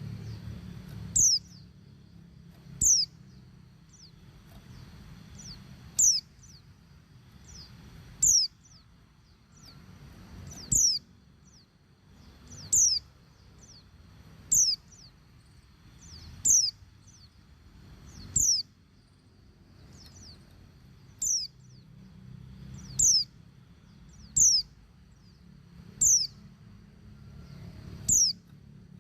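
Female white-eye (pleci) giving short, high calls that slur downward, one about every two seconds. It is the calling of a female in breeding condition to males, over a low steady hum.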